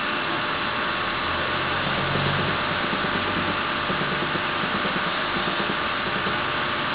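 Teneth cutting plotter running: its drive motors give a steady mechanical hum whose low tones shift in pitch every second or so, over a constant high whine.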